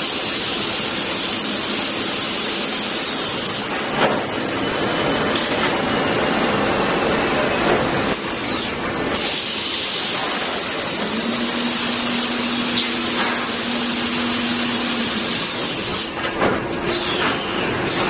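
Plywood DD edge-trimming saw line running, a steady loud machine noise of saw motors. An occasional knock, a few brief falling squeals and a low hum midway sound over it.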